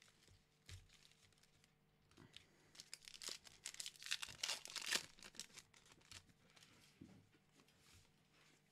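A Pokémon Battle Styles booster pack's foil wrapper being torn open and crinkled by hand, a run of ripping and crackling from about two to five seconds in.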